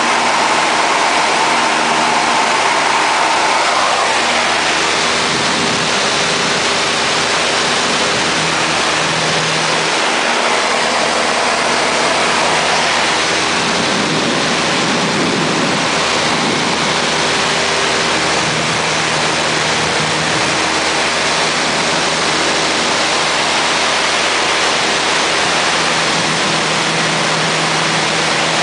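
Cabin noise of a high-wing light aircraft in flight: the piston engine and propeller drone steadily under a constant rush of air.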